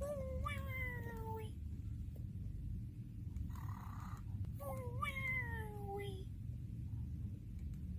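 Cartoon snoring: two long whistling tones, each sliding downward in pitch over about a second and a half, with a short softer tone between them, over a steady low hum.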